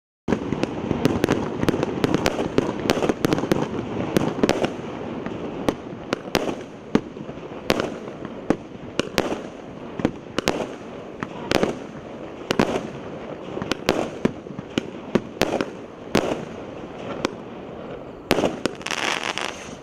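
A 36-shot consumer firework cake firing in sequence: an irregular, rapid string of sharp bangs from shells launching and bursting, starting a moment in. Near the end there is a stretch of hiss.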